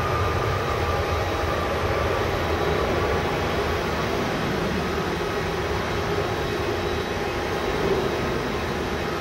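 Boeing 777 jet engines at takeoff power during the takeoff roll and rotation: a steady, even rushing noise with no breaks.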